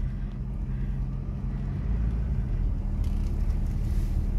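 A car's engine hums low and steady, with road rumble, heard from inside the cabin while the car drives slowly.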